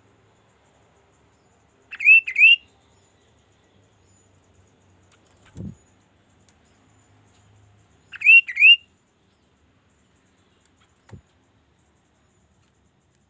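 Chestnut-capped babbler (kaso-kaso) calling: two quick rising whistled notes, given twice about six seconds apart. Two soft low thumps fall between and after the calls.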